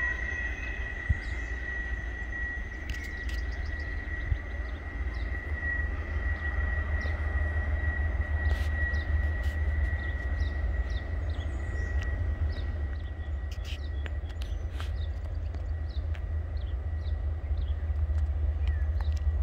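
Freight train rumbling in the distance, with a thin, steady high wheel squeal that fades out about twelve seconds in. Short bird chirps sound over it.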